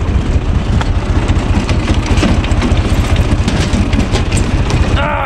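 Diesel engine of a UTB Universal U445 tractor running steadily, driving a PTO-powered screw cone log splitter, with a few sharp cracks as wood splits on the cone.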